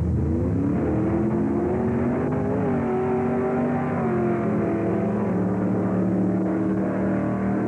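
Drag car accelerating hard down the strip at full throttle, its engine note climbing and then dropping back in steps at gear changes.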